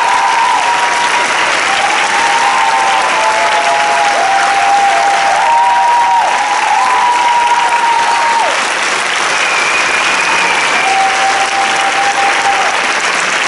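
Audience applauding steadily, with several long held tones, each dipping in pitch as it ends, sounding over the clapping.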